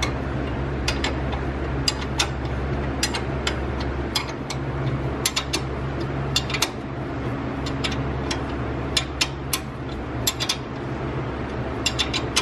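Ratchet wrench clicking in irregular runs as it is worked back and forth, tightening the 19 mm bolts that hold a front brake caliper carrier to the hub. A steady low hum runs underneath.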